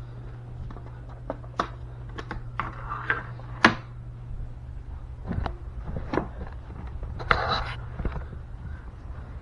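Scattered clicks, knocks and a brief rustle of objects and cloth being handled close to the microphone, the loudest knock about a third of the way in, over a steady low hum.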